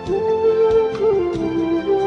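Background music: a slow melody of long held notes over a light ticking beat.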